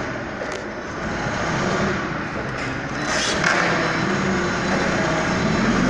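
Motor vehicle engine running steadily, with a short hiss a little over three seconds in.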